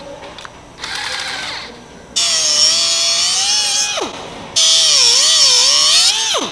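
Angle grinder cutting into a steel bracket and throwing sparks, run three times: a short, quieter burst, then two longer, louder cuts. The motor's pitch dips and wavers as the disc bites, and it winds down with a falling whine after each cut.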